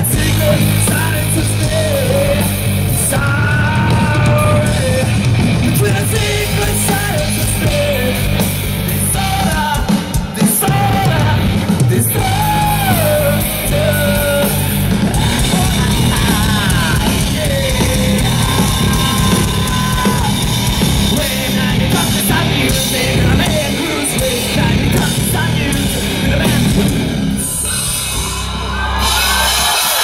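A rock band playing live at full volume, with a singer belting over drums, bass and electric guitars, heard from among the audience. Near the end the band stops and the crowd cheers.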